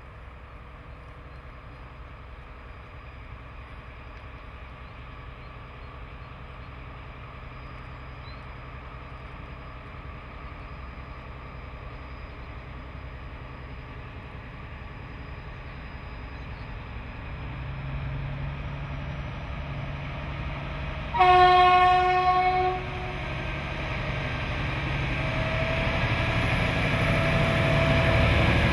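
Three DR V100 (class 112) diesel-hydraulic locomotives approaching under power, their engines' low rumble growing steadily louder as they near. About three-quarters of the way through, one single-tone horn blast lasting about a second and a half.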